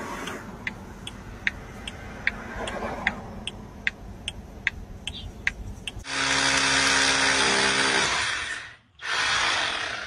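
Cordless drill running loud for nearly three seconds, stopping briefly, then starting again near the end. Before it come regular faint ticks, about two and a half a second.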